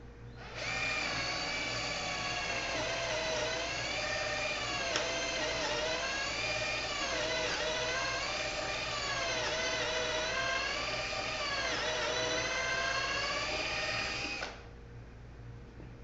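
Electric drill spinning a Kreg stepped pocket-hole bit into wood, a steady whine that dips and recovers in pitch again and again as the bit bites. It starts about half a second in and stops abruptly near the end.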